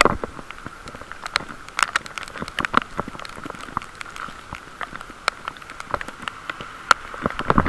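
Heavy rain: raindrops strike close to the microphone as many irregular sharp taps over a steady hiss.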